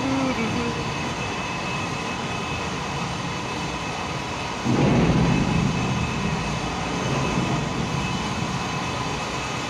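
Steady drone of a ship's machinery heard on deck, with faint held tones in it. About five seconds in, a sudden louder rush of noise swells for a second or so and fades back into the drone.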